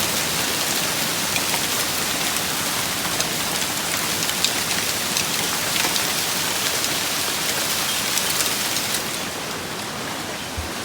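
Heavy rain and hail pelting down in a severe thunderstorm: a steady rushing hiss dotted with many sharp ticks of stones striking. It eases slightly near the end.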